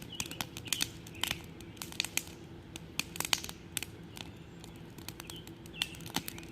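Sausage, potatoes, green pepper and onion frying in a cast iron pan, with irregular sharp pops and crackles throughout over a faint steady hum.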